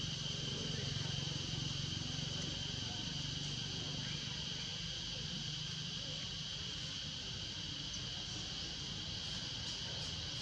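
Steady chorus of insects, a continuous high buzzing that holds level throughout, with a faint low hum underneath that is stronger in the first half.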